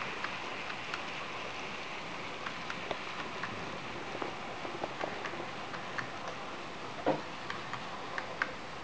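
N-scale model train with an Ae 6/6 locomotive running along the track: a steady rolling rush with scattered light, irregular clicks from the wheels on the rails. One louder knock comes about seven seconds in.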